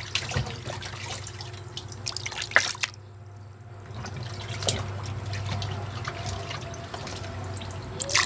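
Water splashing and dripping in a plastic basin as raw chicken wings are washed by hand, in irregular bursts with a loud splash near the end.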